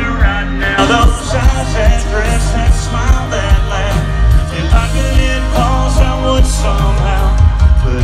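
Live country band playing loud through a concert PA, heard from the crowd: drums keeping a steady beat under guitars and keyboard.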